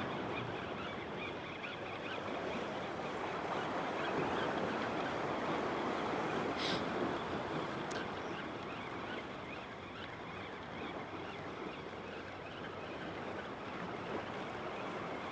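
Ocean surf washing against jetty rocks, a steady rushing noise that swells a little in the middle, with one brief high click about two-thirds of the way through.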